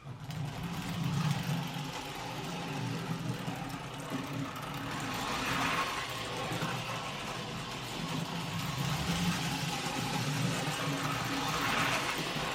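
A prewar Lionel toy train locomotive's electric motor running steadily, a low hum under a hissing whir. It has freshly replaced wiring and a cleaned armature with its brushes making good contact, and it is running a lot better. The sound swells slightly about halfway through and again near the end.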